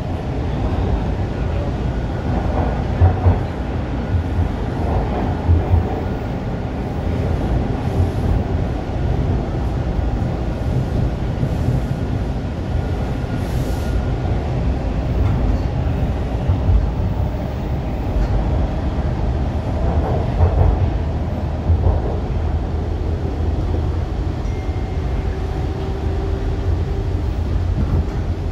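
Toronto subway train heard from inside the car, accelerating away from a station: a steady rumble of motors and steel wheels on the rails, with a few light knocks and a faint steady whine through the first half.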